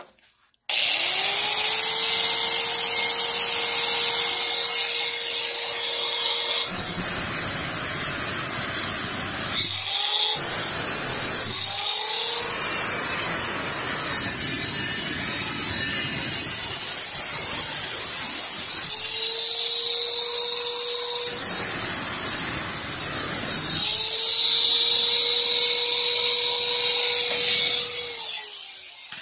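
Angle grinder with a cutting disc cutting through the rusted sheet steel of a vintage Vespa's lower body panel. It starts just after the beginning and alternates between a steady whine while the disc spins free and a rougher grinding noise while it bites into the metal, with two brief let-ups partway through. It winds down near the end as the rusted section is cut out.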